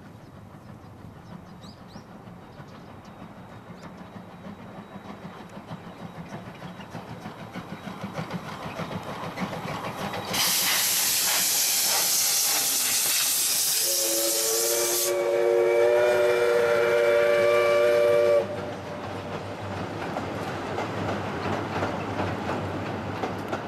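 Steam locomotive approaching with a regular chuffing that grows louder, then a loud hiss of steam venting as it passes close, and a long whistle blast that cuts off suddenly. After it, the coaches roll by.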